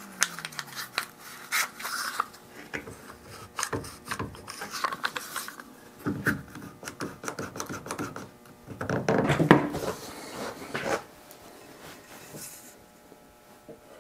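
Cheap one-handed bar clamps being ratcheted and fitted onto a wooden strip in a window frame: a run of quick clicks and scrapes, with a louder scraping stretch near the end before it goes quieter.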